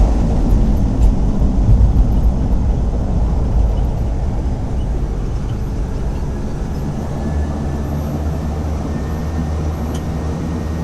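Float plane's propeller engine running, a steady loud low drone that eases slightly about four seconds in.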